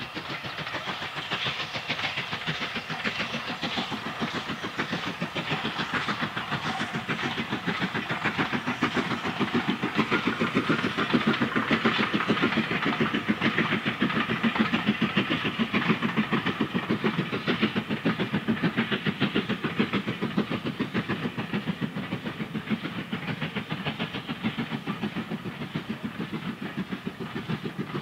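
Steam train running at speed: a fast, even beat of locomotive exhaust and wheels on the rails with a hiss of steam, growing louder toward the middle and easing off near the end.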